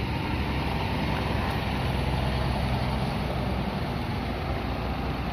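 Hino RM 280 coach's diesel engine running steadily as the bus moves off slowly at low speed, a continuous low rumble.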